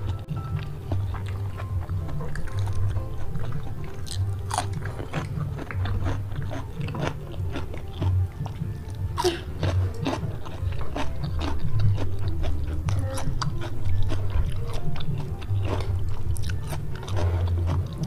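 Close-miked chewing and biting: moist mouth sounds and many small clicks as a mouthful of spicy stir-fried squid and rice is eaten. Background music with a steady low bass runs underneath.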